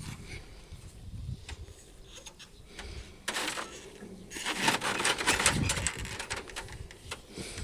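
Rubbing and rustling of a camel's harness straps and saddle gear being handled and adjusted, in a few short scratchy bursts, the loudest coming about four to six seconds in.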